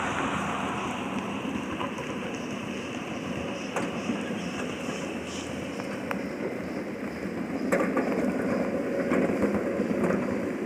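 Steady rumble of a steam-hauled ride-on railroad train running along the track, with a few short sharp clicks.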